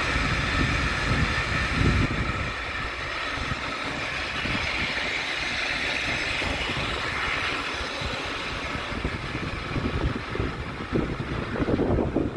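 Water-balanced cliff railway (funicular) running: a steady rushing noise of its cars and cables on the rails, with gusts of wind buffeting the microphone, heavier near the end.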